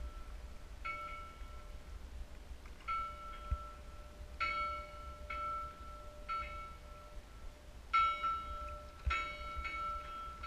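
A single bell of one pitch struck again and again at uneven intervals, each strike ringing on briefly. Low wind and water rumble lies underneath.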